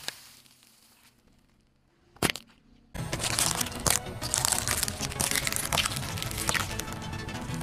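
Car tyre rolling over and crushing objects: one sharp crack about two seconds in, then from about three seconds on a continuous crunching and crackling as eggshells break under the tyre.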